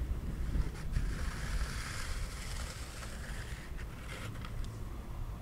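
Wind rumbling on the microphone, with a soft hiss that rises through the middle and fades near the end.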